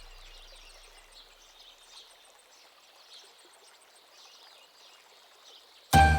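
Music fading out, then faint outdoor background with small bird chirps. Loud jingling Christmas-style music starts suddenly near the end.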